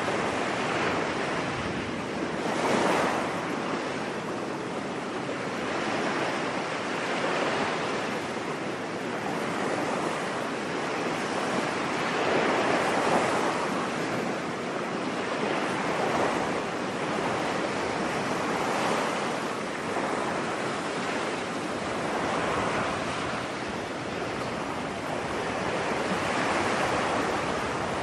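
Ocean surf washing onto a beach: a steady hiss of water that swells as a wave breaks every three to four seconds.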